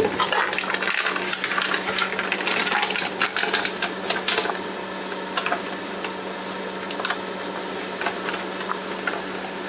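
Crinkling and crackling of a black plastic light-safe bag as a sheet of photographic paper is drawn out of it, dense for the first four seconds or so, then occasional single crackles. A steady low hum runs underneath.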